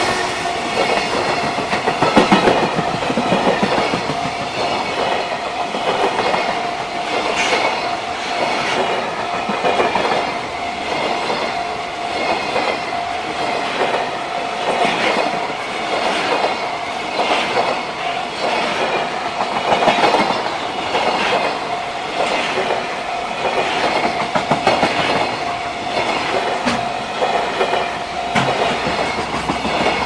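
Loaded freight container flatcars rolling past at speed, their wheels clattering rhythmically over the rail joints, with a steady high tone running underneath.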